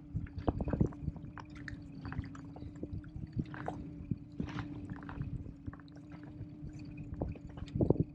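Water sloshing and gurgling against a small inflatable boat, with irregular small knocks and a steady low hum underneath.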